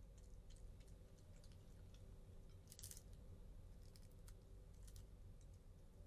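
Faint, scattered clicks and crunches of a raccoon chewing food, with one louder crunch about three seconds in, over a steady low hum.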